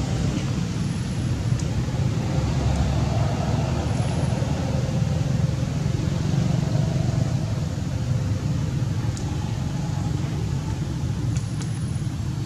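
Steady low rumble of a motor running, with a few faint clicks.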